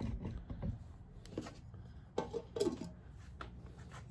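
Handling noise as the camera is picked up and moved: a series of light knocks and clatters, the loudest two a little over two seconds in.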